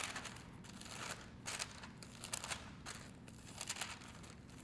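Thin Bible pages being leafed through: several short papery rustles about a second apart.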